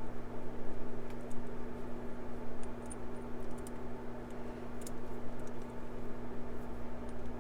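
Scattered faint clicks and taps of small metal lock parts and tools being handled while a lock is taken apart, over a steady low hum.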